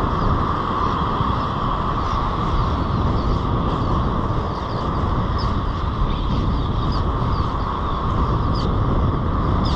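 Surf breaking and washing up a sandy beach, with wind buffeting the microphone as a steady rumble.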